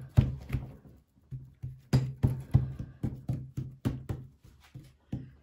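Background music with a steady, quick beat of about three strikes a second.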